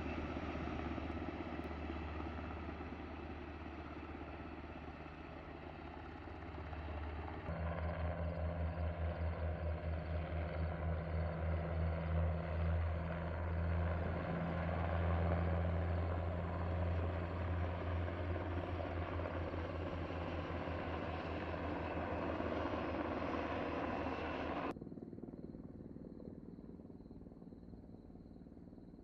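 U.S. Navy helicopters flying overhead, a steady drone of rotors and engines with a pulsing rotor beat that swells louder several seconds in. Near the end the sound drops suddenly to a much fainter, distant hum.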